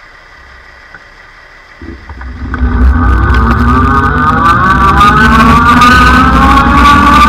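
Wind noise buffeting the bike-mounted camera's microphone, starting about two seconds in as the electric bike gets moving, with a whine from its hub motor that rises slowly in pitch as it speeds up.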